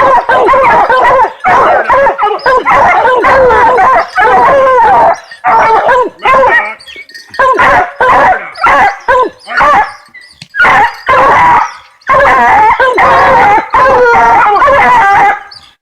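A pack of bear hounds baying, several drawn-out howling bays overlapping almost without pause, with brief lulls about seven and ten seconds in.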